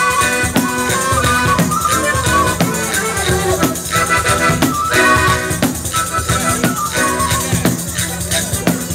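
Live folk music: a tamburello, a large frame drum with jingles, struck by hand in a steady rhythm of beats and jingling, over acoustic guitar and accordion.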